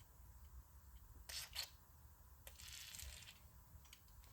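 Near silence: a few faint clicks and a brief faint hiss about two and a half seconds in.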